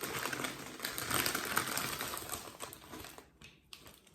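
Crisp, dense crackling of Ruffles All Dressed potato chips, busy at first and dying away about three seconds in.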